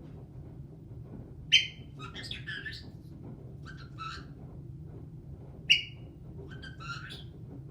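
Caique parrot calling: two short, sharp, loud calls about four seconds apart, each followed by a run of quicker chirping notes.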